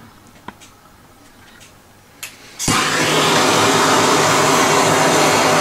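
A couple of faint clicks, then about halfway through the steady hiss of a hand-held MAP gas torch burning starts abruptly and stays loud.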